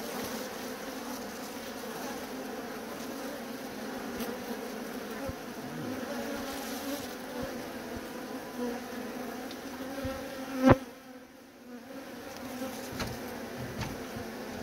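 A colony of honey bees buzzing steadily as a dense, even hum. About ten and a half seconds in there is one sharp knock, the loudest sound, after which the hum briefly drops away before returning.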